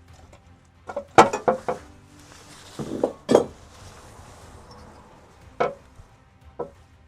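Metal clinks and knocks of hand tools and bolts as the engine oil pan is unbolted: a quick run of clinks about a second in, a few more around three seconds, and single clinks near the end.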